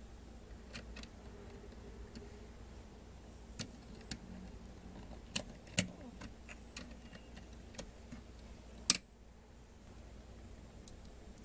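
LEGO Technic plastic parts clicking and tapping as they are handled and pressed together: scattered single clicks, the sharpest about nine seconds in.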